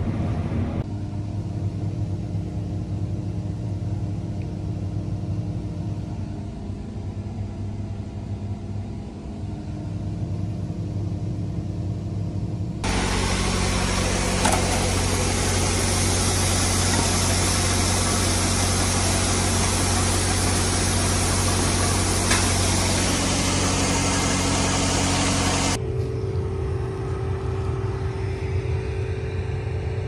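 John Deere combine harvesting soybeans, heard from inside the cab: a steady engine and machinery hum. About thirteen seconds in it switches to a much louder, rushing machinery noise lasting about thirteen seconds, then drops back to a quieter steady engine hum near the end.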